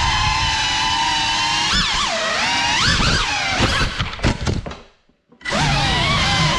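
Cinelog 35 cinewhoop's brushless motors and propellers whining steadily, then swinging sharply up and down in pitch with several knocks as the drone crashes and tumbles. The motors cut out for about half a second just before five seconds in, then spin back up as the drone recovers and flies on.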